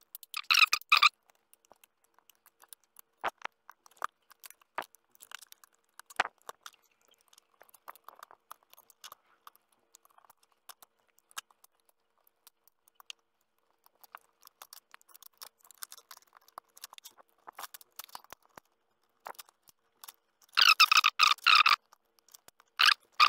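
Plastic screen-bezel clips of a Lenovo G510 laptop clicking and creaking as a plastic pry tool is worked around the bezel to release them. Mostly scattered single clicks, with a louder run of rapid clicking near the end.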